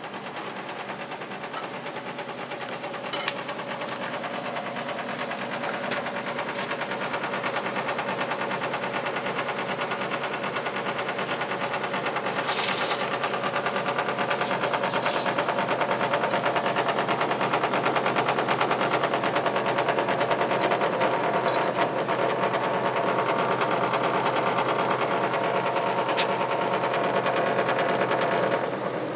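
Panasonic CS-J285C air conditioner's outdoor unit running with a fast, continuous mechanical rattle over a steady hum, the rattling noise of the unit's vibration. It grows louder over the first fifteen seconds or so, then holds steady.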